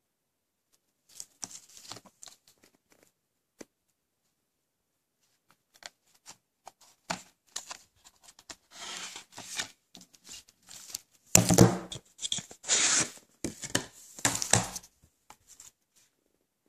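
Plastic wrapping on a Blu-ray case crinkling and tearing as it is handled: a few light crackles at first, then a long run of crinkling from about six seconds in, loudest in the last third.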